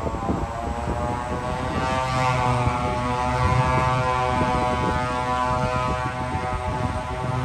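Propeller airplane engines running with a droning stack of tones that shifts slightly in pitch, over gusty wind noise.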